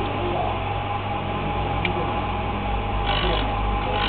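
Ring knife sharpening machine running steadily, its knife-drive and grindstone motors giving a constant low hum with a steady mid-pitched tone. About three seconds in, a brighter noisy layer joins.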